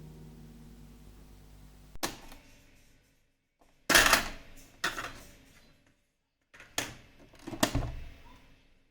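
Music fading out at low level, then five sharp mechanical clicks and clunks spread over several seconds. The second and fourth of these are the loudest.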